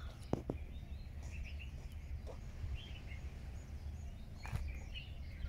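Outdoor hillside ambience: a steady low rumble of background noise with faint, scattered bird chirps. There are two short sharp clicks about half a second in.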